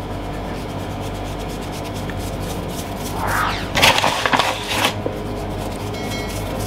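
A hand dusting flour over a kitchen worktop and spreading it around, heard as a brushing, rubbing sound that grows louder for a couple of seconds around the middle.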